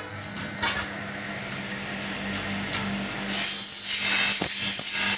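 Aluminium window profiles being handled and slid across a steel machine bed: metal scraping and rubbing, with a bright scraping stretch in the second half and a couple of sharp knocks near the end.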